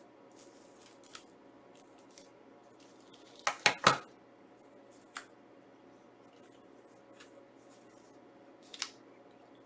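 Handling of a Blu-ray steelbook and its packaging: scattered sharp clicks and plastic handling noises, with a cluster of three loud clicks about three and a half seconds in and single clicks near five and nine seconds.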